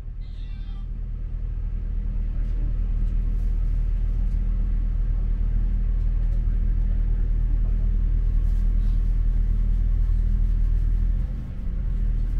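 Diesel train heard from inside the carriage: a low rumble of engine and running gear with a steady engine drone. It grows louder over the first few seconds, then holds, with a brief dip near the end.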